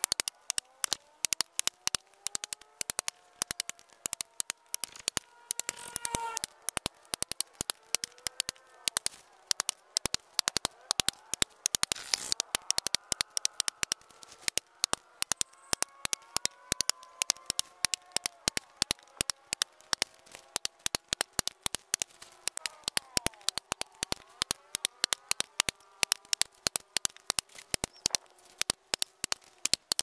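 A wooden mallet tapping a chisel into the soft top of a palm trunk: a fast, steady run of sharp knocks, several a second.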